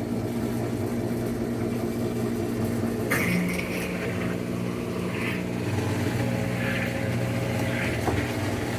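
Whirlpool top-load washer running in its diagnostic cycle, a steady motor hum. About three seconds in there is a click and a new steady tone joins. After that a short higher rubbing sound comes back every second or two.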